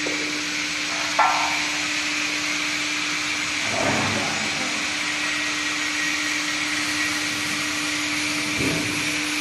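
Steady machinery noise with a constant hum and a high whine, broken by a sharp knock about a second in and softer knocks near four seconds and near the end.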